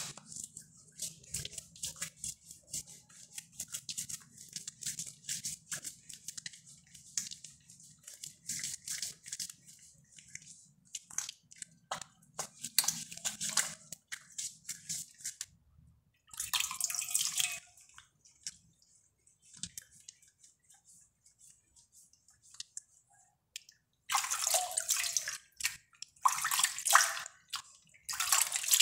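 Wet hands rubbing a bar of homemade soap into a lather over a basin of water, a steady run of small squishing crackles. Partway through and again several times near the end come splashes as the hands dip into the water and wash.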